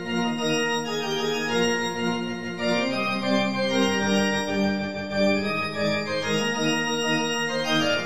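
Organ music: a tune played in held chords, the notes shifting every second or so.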